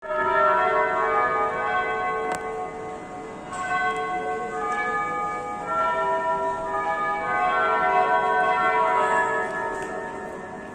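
Bells ringing: several bells of different pitches are struck in turn, their tones overlapping and ringing on, with fresh strikes about three and a half and six seconds in.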